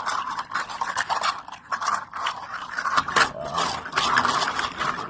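A 3D-printed articulated PLA slug being flexed and wiggled in the hand, its jointed segments clicking and scraping against each other in a dense, continuous rattle.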